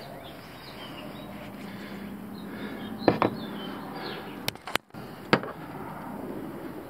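A few sharp clicks and knocks from hands working on catch-can fittings and hoses in a truck's engine bay, over a steady low hum, with faint bird chirps.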